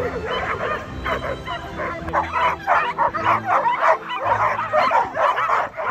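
A large pack of dogs barking together: a dense, overlapping chorus of short, high-pitched barks that grows louder about two seconds in.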